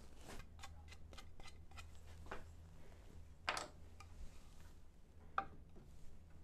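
Faint light taps and clicks of pine door pieces and a wood-glue bottle being handled on a workbench, with a sharper knock about halfway through and another near the end.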